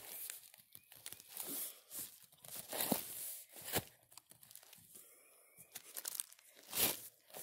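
A wooden stake being worked into the forest floor by hand, with irregular crunching and crackling of leaf litter and twigs close to the microphone. The sharpest crunch comes near the end.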